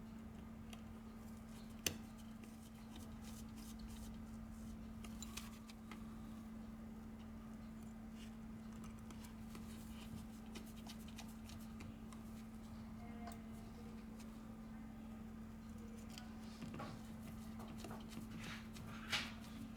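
Faint clicks and taps of small tools and parts being handled while an iPhone X is reassembled, with a sharper click about two seconds in and another near the end, over a steady low hum.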